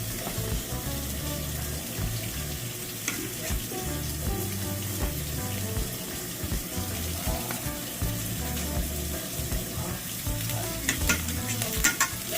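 Food frying in hot oil: a steady sizzle with scattered sharp pops and crackles, a few coming close together near the end.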